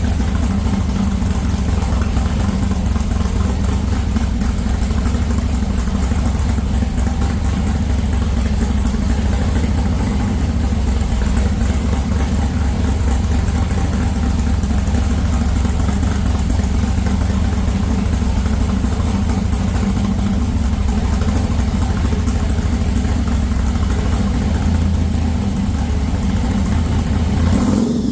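Hot rod car engine idling steadily with a deep low rumble, cutting off abruptly near the end.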